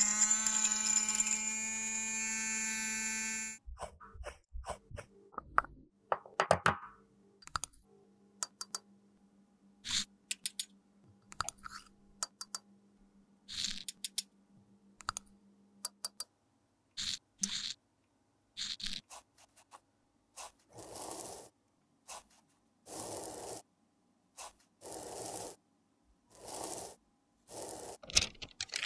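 Small electric grinder's motor running steadily as it grinds pink makeup powder in its glass jar, then cutting off about three seconds in. Then clicks and scrapes of a metal spatula spooning the powder into a metal pan, and near the end a run of scraping strokes about one a second as it is pressed and smoothed flat.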